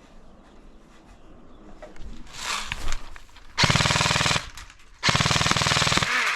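Airsoft gun firing two full-auto bursts of rapid, evenly spaced shots. The first is short, and the second, about a second later, lasts a little over a second.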